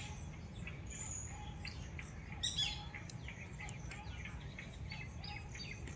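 Birds chirping: scattered short high chirps, with a brighter run of calls about two and a half seconds in, over a steady low background hum.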